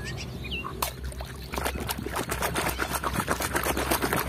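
Water splashing and sloshing in a plastic tub as a muddy toy car is dunked and scrubbed by hand. It starts suddenly about a second in and becomes a busy, irregular churning from about halfway on.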